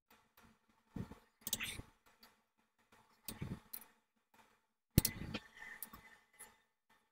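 Scattered metal clicks and clatters from a hand tool working the oil-pan bolts on a motorcycle engine, with a sharp click about five seconds in.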